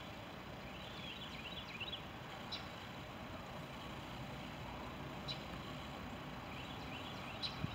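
Stopped CSX diesel locomotive idling: a steady low rumble, with faint birds chirping twice.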